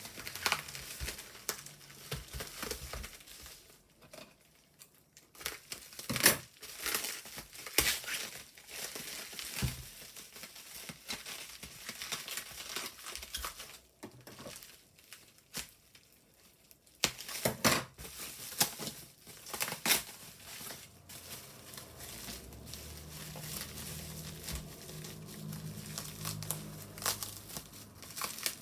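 Packaging crinkling and tearing in irregular bursts as a mailed parcel is opened and a box is worked out of it.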